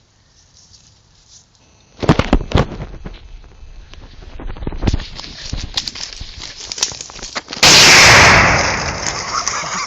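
Irregular loud crackling and popping for about five seconds, then one very loud explosive bang as fireworks blow apart a mini fridge, the blast fading over a second or two.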